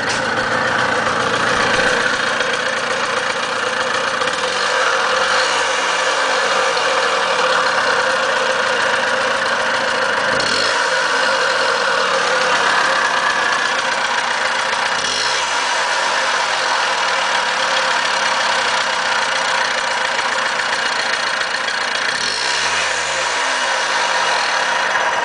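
Small single-cylinder engine of a Honda Z50A minibike idling steadily, with a knocking noise that the owner suspects comes from a bad bearing.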